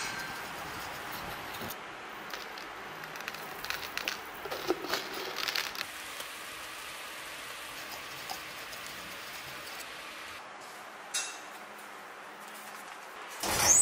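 Metal rod stirring and scraping molten brass in a crucible, making scattered light clinks over a steady hiss and crackle. A loud rushing noise that rises in pitch begins just before the end.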